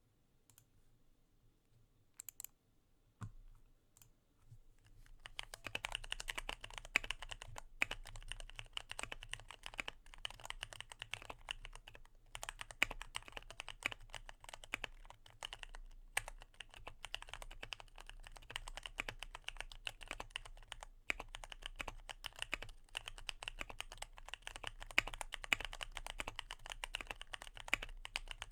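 Keychron Q1 mechanical keyboard with Gateron Phantom Brown switches, modded with tape and plate foam, being typed on. A few single key clicks come first, then steady fast typing starts about five seconds in.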